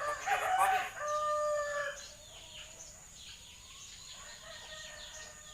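A loud crowing call about two seconds long: a rough burst, then a held, slightly falling note. It is followed by faint, quick chirps of small birds.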